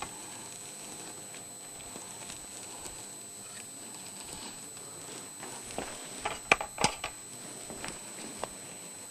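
Light clicks and taps of utensils and food being handled on a serving plate as a dish is garnished, a small cluster of them about six to seven seconds in, over a steady faint hiss.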